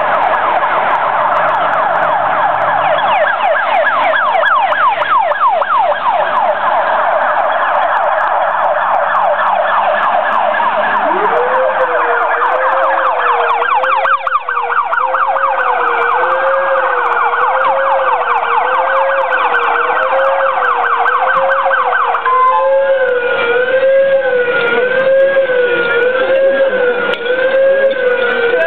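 Sirens of arriving Polish fire-service vehicles (fire engines and a medical rescue van) sounding together. A fast yelping siren is joined about eleven seconds in by a lower, slower wavering one. About three-quarters of the way through, the yelp stops and a higher wavering siren carries on alongside the low one.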